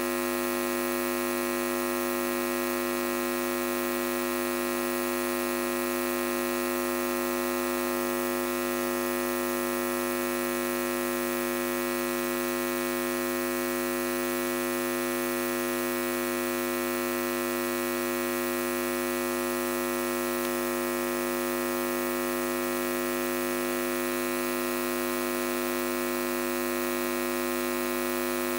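Steady electrical mains hum, a buzz made of many steady tones that never changes.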